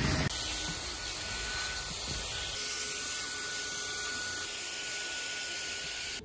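Vacuum cleaner running steadily, a rushing hiss with a thin high whine, as its nozzle sucks up snack crumbs and jelly pieces from a leather car seat.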